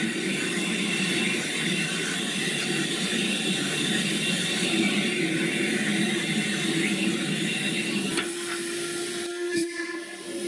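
WD Austerity 2-10-0 steam locomotive standing in steam, giving off a steady rushing hiss. About eight seconds in the sound drops to a softer hiss with a faint steady hum.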